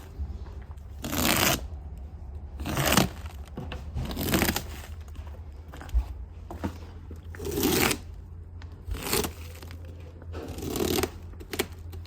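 A series of rough scraping strokes, about seven of them, roughly one every second and a half, over a steady low hum.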